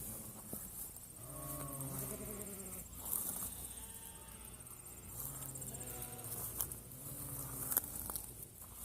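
Faint, drawn-out bleats of farm animals, one about a second in and another around five seconds in, over a steady high chirring of insects.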